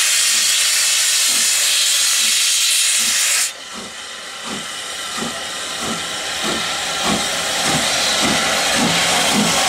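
LSWR M7 tank locomotive No. 30053 pulling away with its train: a loud hiss of steam from the open cylinder drain cocks cuts off suddenly about three and a half seconds in, then the exhaust chuffs come steadily quicker as it gathers speed.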